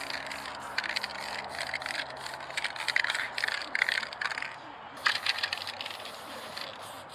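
Aerosol spray paint can hissing in short repeated bursts against a wall, with the can's metal mixing ball clicking and rattling inside. A stronger burst comes about five seconds in.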